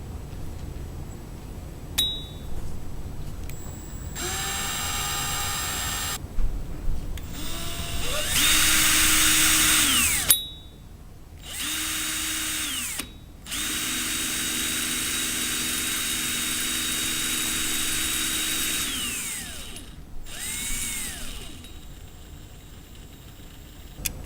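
Power drill with a hole saw fitted, run free in about five trigger bursts: each spins up to a steady whine and winds down, the longest lasting about five seconds.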